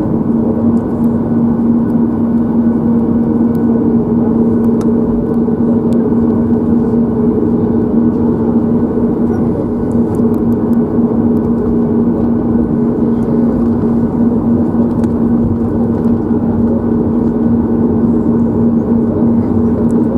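Cabin noise of a Boeing 737 MAX 8 taxiing, heard from a window seat over the wing: its CFM LEAP-1B engines running at low taxi power, a steady hum with a low drone, and a few faint ticks.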